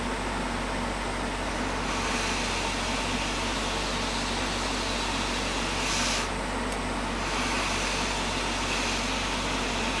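Hot air rework station blowing steadily over a circuit board as it reflows solder: an even hiss of air over a low hum, getting a little brighter about two seconds in, with a short stronger rush of air around six seconds.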